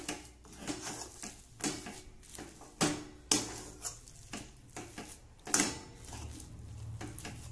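Steel spatula scraping and clinking against a steel kadhai while stirring a thick grated-radish stuffing. The strokes are irregular, with the sharpest ones around three seconds in and again at about five and a half seconds.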